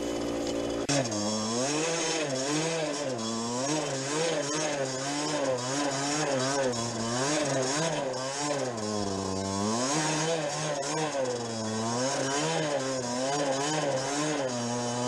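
50cc enduro dirt bike engine revving up and down over and over, its pitch rising and falling about once a second as the throttle is worked on a trail, starting about a second in.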